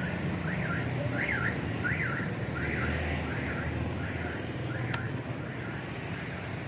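A vehicle anti-theft alarm sounding a repeating rising-and-falling chirp, about two a second, over a low hum of traffic. A single sharp click comes about five seconds in.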